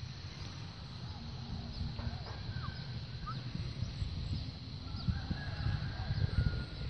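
Faint outdoor bird calls, a few short chirps and thin whistles, over a low, uneven rumble on the microphone that grows louder near the end, with a steady high-pitched drone.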